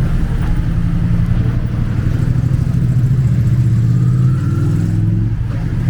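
Motor vehicle engine running close by in street traffic, a steady low hum.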